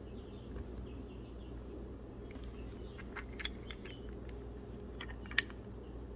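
Small metallic clicks and taps of chainsaw engine parts being handled: a Stihl 021 crankshaft, connecting rod and piston being fitted together by hand, with one sharper click about five seconds in, over a steady low hum.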